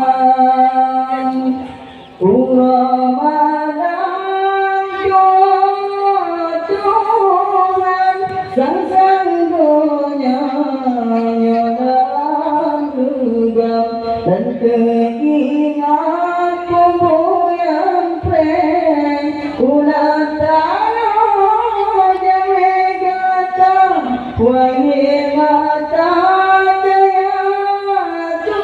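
A man singing solo into a microphone through a PA, in long, held notes whose pitch bends and wavers, with a brief break about two seconds in.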